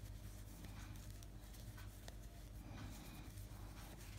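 Faint light ticks and rubbing of knitting needles and yarn as stitches are worked, over a steady low hum.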